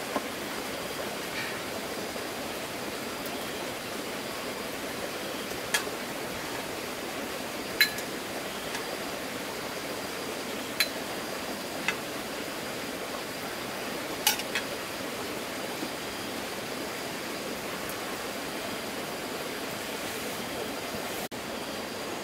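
A steady rushing hiss with a few sharp clinks scattered through it.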